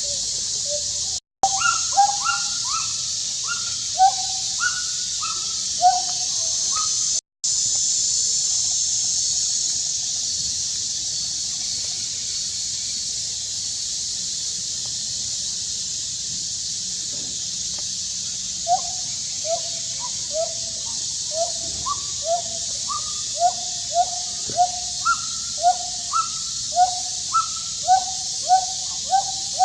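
A monkey's repeated short, high crying calls, about one every half second, in two runs with a long lull between them, over a steady high hiss. The sound cuts out completely for a moment twice early on.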